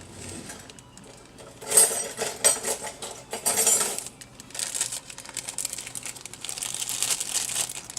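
A boxed cake mix and its packaging being handled and opened: a few short bursts of crinkling and rustling, then a longer steady rustle from about four and a half seconds in.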